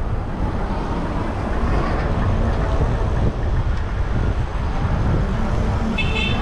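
Wind buffeting the ride camera's microphone over city traffic noise as an e-bike rolls along in traffic. A short, high beep sounds near the end.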